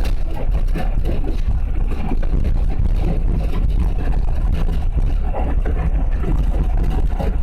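Train running: a steady, loud low rumble with irregular knocks and rattles throughout.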